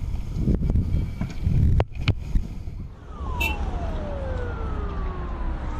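Low rumble of wind and traffic with a couple of sharp knocks. About three seconds in, an emergency-vehicle siren winds down, its pitch falling steadily over two to three seconds, and a second falling tone follows about a second later.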